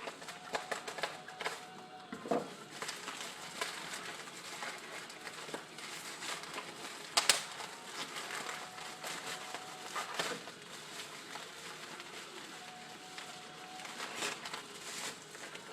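Packaging being handled and unwrapped by hand: irregular crinkling and rustling with sharp clicks and snaps, the loudest snap about seven seconds in.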